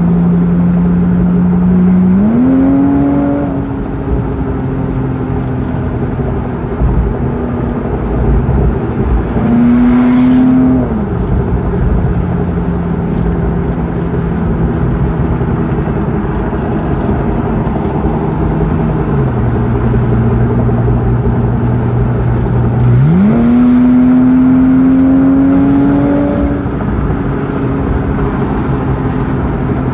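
Car engine and road noise heard from inside the cabin at motorway speed. The engine note jumps up sharply about two seconds in and again near the end, rises briefly around the middle, and sits lower for a few seconds before the last rise.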